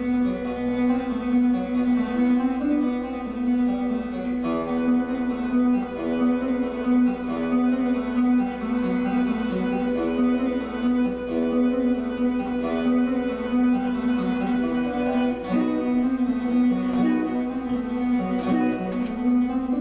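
Guitar music: single notes plucked over a steady, sustained low note.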